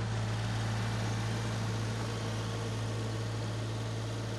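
Gehl skid-steer loader's engine running at a steady, even low pitch as the machine drives slowly.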